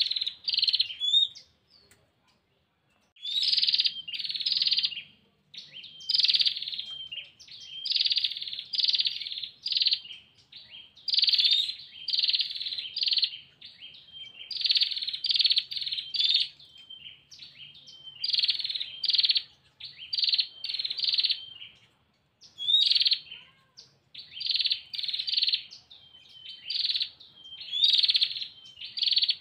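Female prinia (prenjak) calling for a male: repeated rapid, buzzy trills, each a second or two long and coming about every two seconds, with short clear notes in between.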